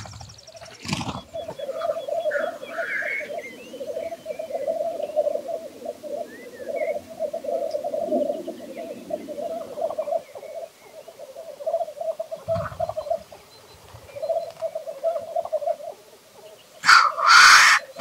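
Male black grouse on a lek making their continuous bubbling, dove-like cooing display song. A loud hissing call breaks in about a second in, and again near the end.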